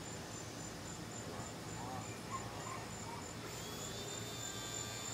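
Insects chirping in a steady high-pitched pulse, about four chirps a second. A faint thin whine comes in about three and a half seconds in.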